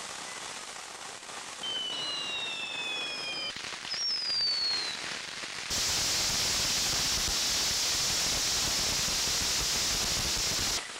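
Firework fountains hissing, with several high whistles that slide down in pitch about two and four seconds in. About six seconds in, a much louder, steady hiss of a fountain's spark spray starts suddenly, then cuts off shortly before the end.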